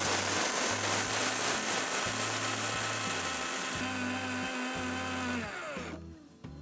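Preethi Zodiac mixer grinder running at full speed, dry-grinding roasted urad dal into a fine powder in its steel jar. It is switched off about five and a half seconds in, and its hum slides down as the motor winds down.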